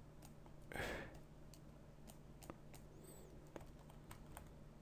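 Faint, scattered clicks of a computer mouse and keyboard over a steady low hum, with a short breathy hiss about a second in.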